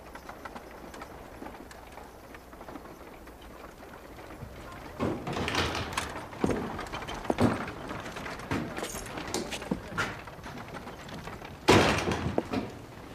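Scattered knocks and footfalls on wooden boards, then a wooden door banging open about twelve seconds in, followed by footsteps on the floor.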